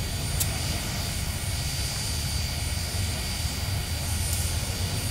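Steady low vehicle rumble with no clear beat, with a brief click about half a second in and another near the end.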